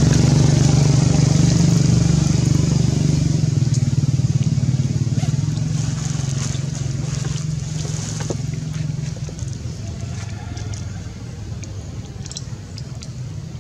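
Low engine hum of a passing motor vehicle, steady at first and then fading away over the second half.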